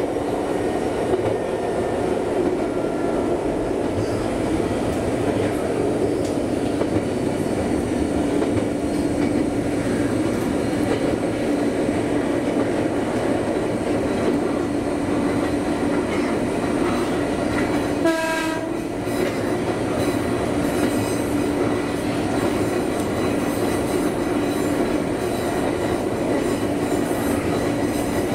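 Former Eidan 3000 series electric train running at speed, heard from inside the driver's cab: steady running noise with a constant hum. A short horn toot sounds about two-thirds of the way through.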